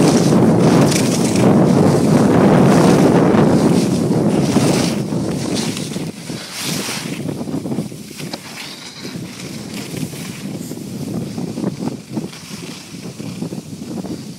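Wind rushing over the microphone of a camera carried by a snowboarder riding downhill. It is loud for the first five seconds, then eases to a rougher scraping of board edges on packed snow.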